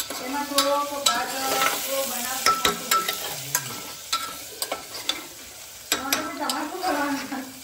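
Chopped onion sizzling as it fries in an open aluminium pressure cooker. A steel spoon stirs it, clinking and scraping against the pot again and again.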